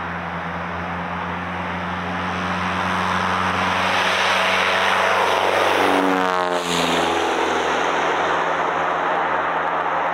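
1954 Cessna 170B's IO-370 engine and propeller at high power on a grass-strip takeoff run. It grows louder as the plane comes toward the microphone, then drops sharply in pitch as it passes about six seconds in.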